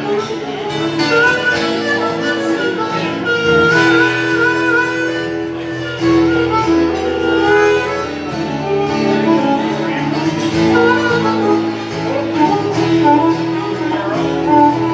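Acoustic guitar strummed with a harmonica playing long held notes over it, an instrumental duo with no singing.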